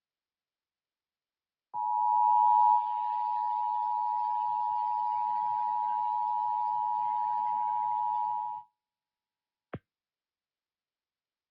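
Emergency Alert System two-tone attention signal received over a radio, announcing an incoming alert. Two steady tones sound together from about two seconds in for about seven seconds, louder for the first second, with faint radio noise beneath, and a single short click follows.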